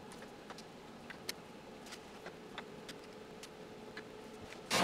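Faint scattered clicks and small metallic taps of fingers and tools working the burner gas valves on a vintage gas stove's manifold. Right at the end a loud rush of noise starts suddenly.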